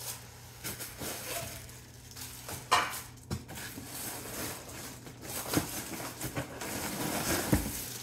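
Unpacking noises: cardboard box flaps and plastic wrapping rustling, with scattered knocks as a stainless steel steamer pot is handled and lifted out of its box. The sharpest knock comes about two and a half seconds in.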